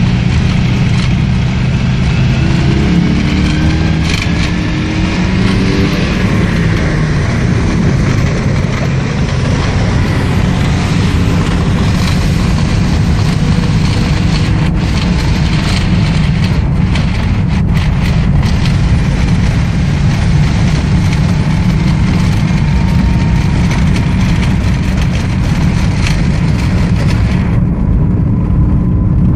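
Car engine running and road noise heard from inside the cabin while driving, with the engine note climbing in pitch a few seconds in as the car accelerates.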